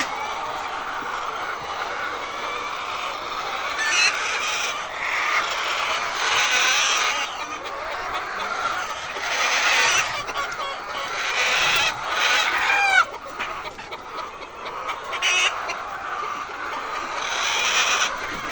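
A flock of laying hens clucking and squawking continuously, with louder calls coming and going and one falling squawk about 13 seconds in.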